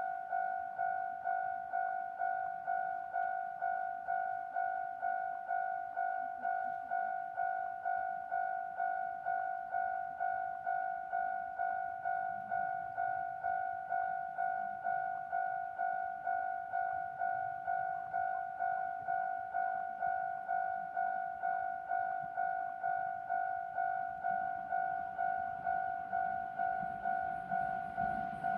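Japanese level-crossing warning bell ringing: an electronic ding repeated at a steady, even rhythm, signalling that a train is approaching and the barriers are coming down.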